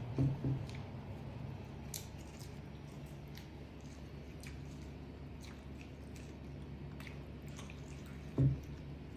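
A baby monkey biting and chewing kernels off a corn cob: small wet crunching and clicking bites over a low steady hum. Two short soft thumps come just after the start, and one more near the end.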